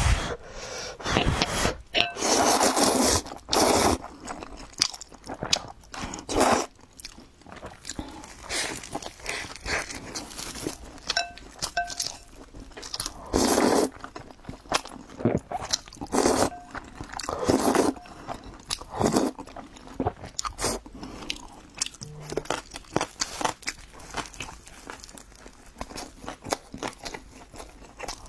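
A person eating crunchy food close to the microphone: repeated crunching bites and chewing at an uneven pace.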